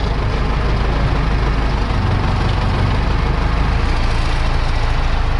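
Tractor engine running steadily, heard from inside the cab while the tractor moves to set its trailer back in place.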